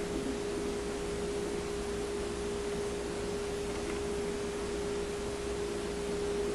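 A steady single-pitched hum over a faint even hiss, with no knocks or clicks.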